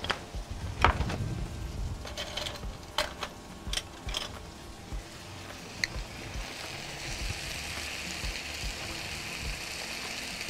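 Freekeh and onion frying in an open pan, the sizzle rising to a steady hiss about six seconds in. Before that, a few light knocks and clicks of utensils.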